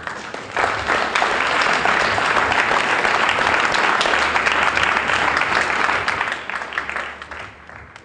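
Audience applauding: a dense patter of many hands clapping that swells within the first second, holds, and dies away over the last two seconds.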